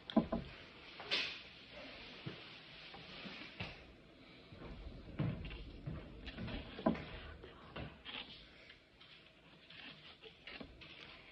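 Eating at a table: a plastic fork taps and scrapes on a plate in a series of small, irregular clicks, with some chewing.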